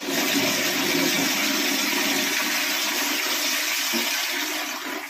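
Cistern flush water gushing into a ceramic Indian squat toilet pan: a steady rush of water that eases off slightly near the end.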